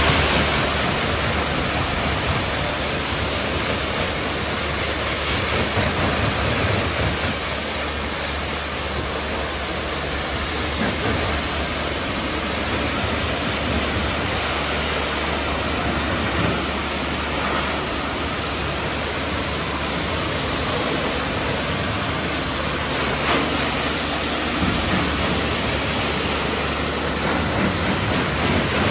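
Pressure washer spraying a steady jet of water onto a car, with a low steady hum underneath.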